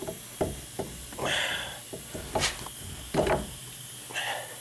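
Scattered clicks and clinks of a new wheel bearing and hub assembly and its steel bolts being handled, with a couple of short rustles of plastic packaging.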